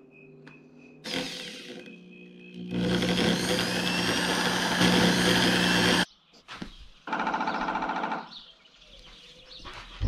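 Handheld power drill running in bursts: a short whir about a second in, a long run of about three seconds in the middle, then two shorter runs near the end.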